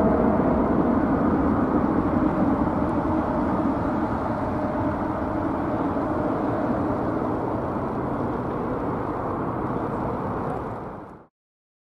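Boeing 777-200LR's twin GE90 turbofans on departure: a steady jet rumble that slowly fades as the airliner climbs away, then cuts off suddenly near the end.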